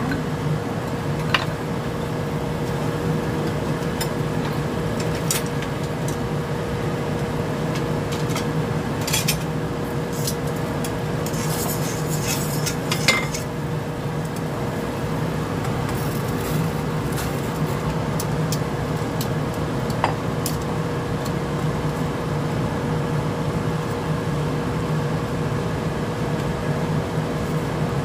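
Water at a rolling boil in a stainless steel pot on a gas stove, a steady hiss with a constant hum beneath it, while metal tongs clink against the pot a few times, most around the middle, as broccoli florets go in to be blanched.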